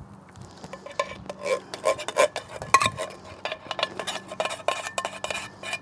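Metal spoon scraping and clinking against the inside of a tin can as chili is scooped out, in quick repeated strokes that start about a second in.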